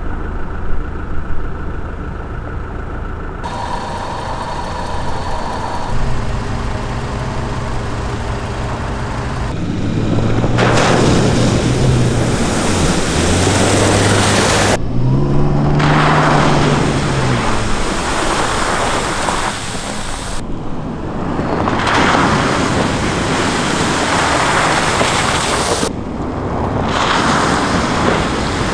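Off-road 4x4 vehicles driving on dirt tracks: engine note rising and falling under a loud rush of tyre and wind noise, in several short clips cut together with abrupt changes.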